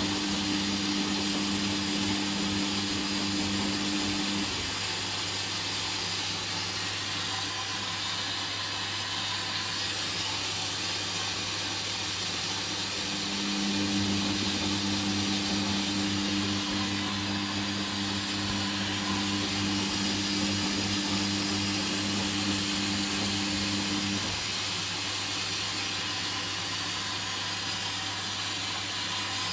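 Hoover Dynamic washing machine in its rinse phase: a steady hiss with a low hum. A motor whine comes on for the first few seconds, stops, and runs again from about 13 seconds in to about 24 seconds in, as the drum is turned in spells.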